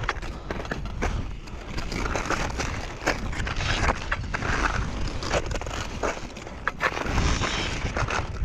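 Crampon-spiked mountaineering boots crunching and scraping on glacier ice and hard snow, in irregular steps, over a steady low rumble.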